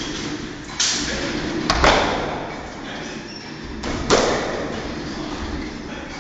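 Swishes and thuds from a kung fu facão routine: blades swung hard through the air and feet stamping on the floor. Three sharp ones stand out, about a second in, about two seconds in and about four seconds in, each trailing off quickly.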